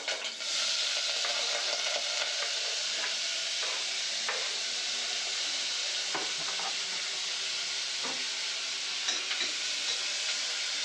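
Chopped onion, tomato and chilli frying in hot oil in a steel pot, a steady sizzle that starts about half a second in as the vegetables go in. A few faint knocks of a utensil against the pot are heard over it.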